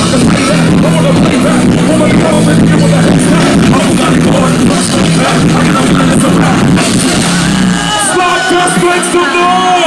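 Loud live concert music over a festival PA, heard through a phone's microphone in the crowd: a heavy bass line and beat with vocals. About eight seconds in, the bass drops out, leaving higher gliding voices.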